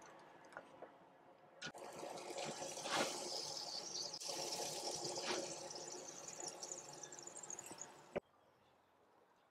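Faint sizzling hiss from the seasoned goat front quarter on the hot grill grate of a charcoal smoker, with a few soft knocks as the meat is handled. It starts about a second and a half in and cuts off suddenly near the end.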